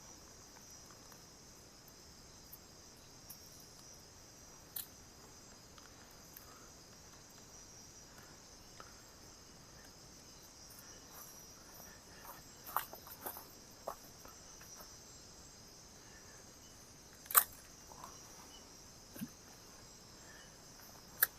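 Night insect chorus, a steady faint high-pitched chirring, with a few scattered clicks and knocks, the loudest about seventeen seconds in.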